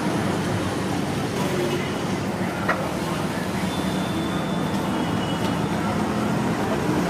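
Steady street background din, mostly traffic rumble, with a single click about two and a half seconds in.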